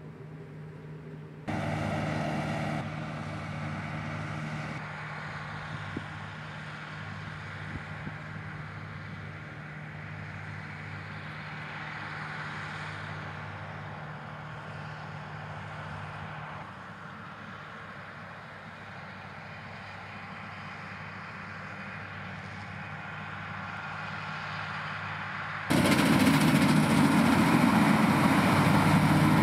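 New Holland combine harvester running while threshing: a steady engine hum with the rush of the threshing machinery. The sound steps up suddenly about a second and a half in, and again near the end, when it becomes much louder and fuller.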